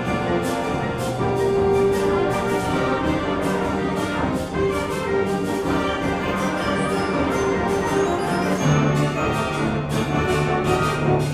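School concert band playing, with full winds and brass over a steady rhythmic pulse. A strong low sustained note comes in near the end.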